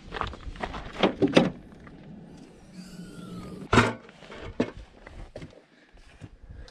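A string of knocks and clanks as a folding step stool is set down on dirt in front of a Ford pickup and the truck's hood is unlatched and lifted. The loudest is a sharp clank about four seconds in.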